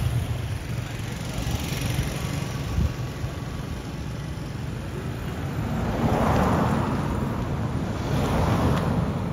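Street traffic passing over a steady low rumble, with the noise swelling about six seconds in and again near the end as vehicles go by.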